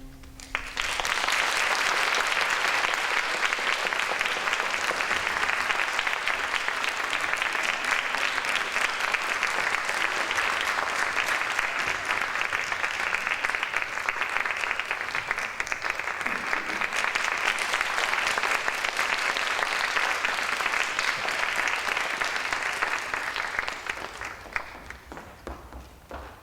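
Theatre audience applauding after an orchestral ballet piece ends: steady clapping that starts about a second in and dies away over the last couple of seconds.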